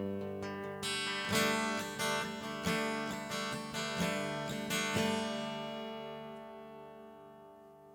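Acoustic guitar strumming the closing chords of a song, then a final chord left ringing and slowly fading out.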